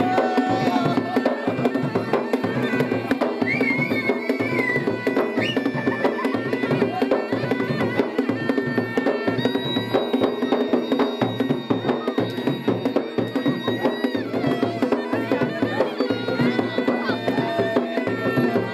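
Garhwali folk dance music: fast, steady drumming under a droning, held melody line, playing without a break.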